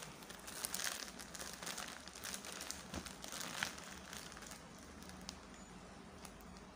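Plastic courier mailer crinkling and rustling as a hand presses and picks at it with a pointed tool to tear it open; irregular crackles, busier in the first few seconds and fainter toward the end.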